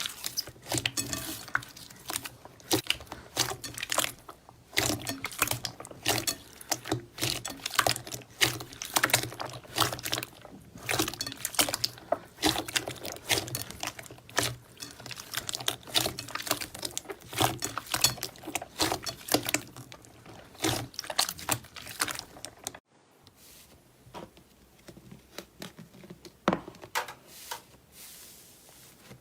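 Slime being worked, making a dense run of sticky wet clicks and pops. It cuts off suddenly after about 23 seconds, leaving only a few faint clicks.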